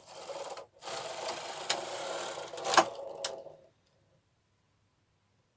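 Knitting machine carriage pushed across the needle bed to knit one row: a steady sliding run with a few clicks and a sharp clack about three seconds in. It stops at about three and a half seconds.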